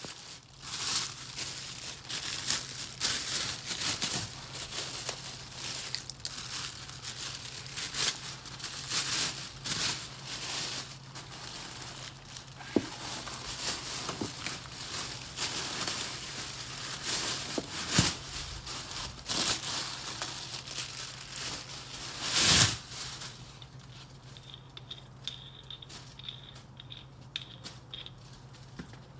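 Clear plastic packaging crinkling and rustling as it is handled and pulled open by hand, with one louder rustle late on, then lighter handling.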